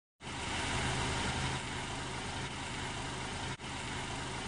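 Car engine running steadily, starting suddenly just after the beginning, with a momentary break about three and a half seconds in.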